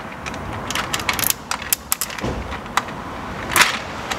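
Hand tools working on an engine's valve cover: irregular sharp metallic clicks and clinks, with a brief scrape about three and a half seconds in.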